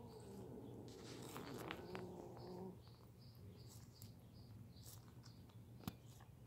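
Faint chewing of a tortoise biting into cucumber: soft clicks and crunches, with a sharp tick about six seconds in. A faint low hum falls slightly in pitch over the first three seconds, and there are faint bird chirps.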